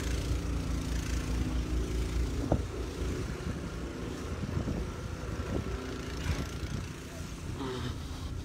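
Pickup truck engine running at idle, a steady low hum that grows fainter after the first few seconds. The truck carries a snowplow blade for clearing the street.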